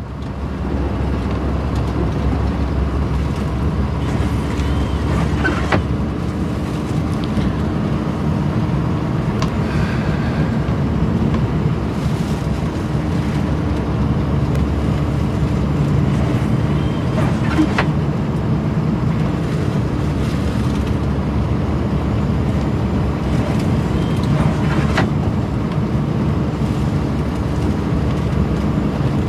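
Scania plow truck's diesel engine rumbling steadily, heard from inside the cab, with a faint tick from the windscreen wipers every six seconds or so.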